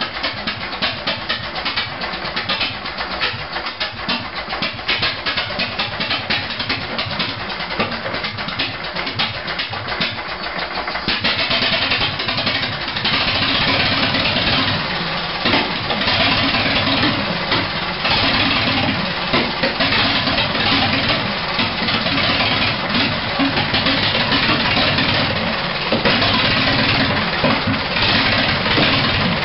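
1920 Harris 1,100-cubic-inch four-cylinder stationary engine running with a rapid, steady beat. About eleven seconds in it becomes louder and fuller, and stays that way.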